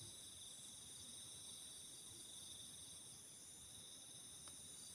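A faint, steady high-pitched chorus of night insects such as crickets, with a single faint tick about four and a half seconds in.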